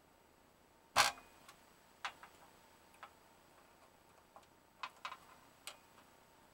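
A screwdriver and small plastic parts clicking and tapping against a ceiling light's base plate and terminal block while its wires are connected: one sharp clatter about a second in, then a handful of lighter, scattered clicks.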